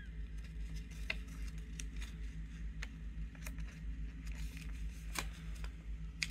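A sheet of paper being folded and creased by hand: scattered short crisp crackles and rustles, over a steady low hum.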